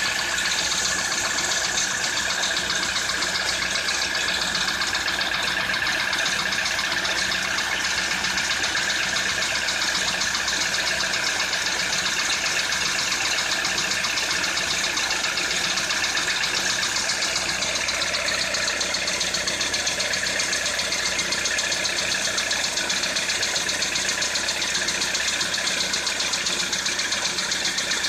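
2013 Citroën C4 engine idling steadily with a rapid, even knocking from within the engine.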